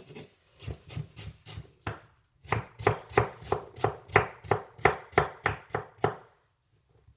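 Knife slicing chayote (chocho) on a cutting board: a few scattered cuts, then a quick even run of about three to four strokes a second that stops about a second before the end.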